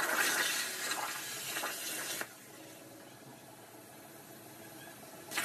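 CNC cutting torch cutting iron sheet: a loud rushing hiss that stops suddenly a little over two seconds in, leaving a faint steady hum, then starts again at the very end.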